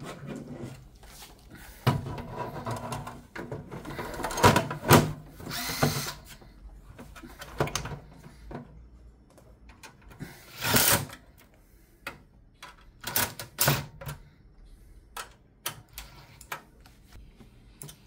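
A handheld electric screwdriver running in several short spells while driving the mounting screws of a power supply into a PC case, among clicks and knocks as the metal unit is handled into place.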